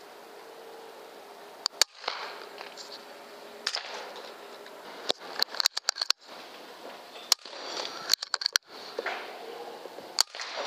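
Air rifle shots and sharp clicks at irregular intervals, some in quick clusters, over a steady low hiss. The sound cuts out abruptly several times.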